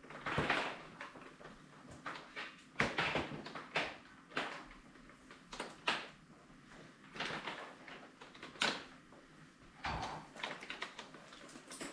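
Plastic knocks, clicks and short sliding scrapes of a Dyson DC33 vacuum's hose and wand tube being pulled up and pushed back down in the upright body, sliding freely now that the sticking hose is fixed. The knocks come irregularly, a dozen or so.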